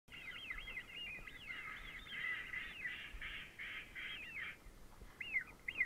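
A flock of birds calling: many overlapping high calls that rise and fall in pitch, thinning after about four and a half seconds to a few single calls near the end.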